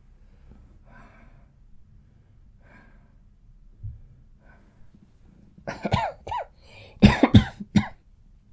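A man coughing: a few faint breaths, then two coughs about six seconds in and a fit of three or four more just after. It is a painful cough from a feverish cold with a sore throat.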